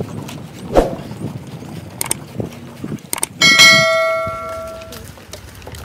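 Footsteps knocking on a wooden boardwalk, then two sharp clicks and a single bright bell chime about three and a half seconds in that rings and fades over about a second and a half: the sound effect of a subscribe-button animation.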